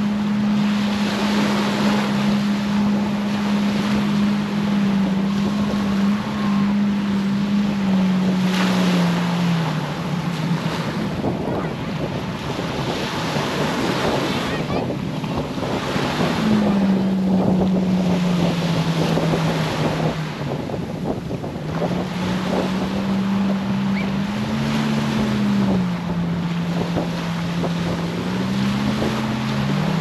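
A motorboat engine running, its drone holding steady and then dropping, rising and shifting in pitch several times, over a continuous rush of surf and wind on the microphone.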